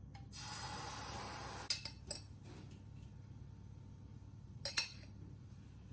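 Kitchen sounds while cooking: a short rushing noise for about a second and a half, then scattered clinks and knocks of utensils and dishes being handled, a few in a quick cluster about two seconds in and a sharper pair near the end.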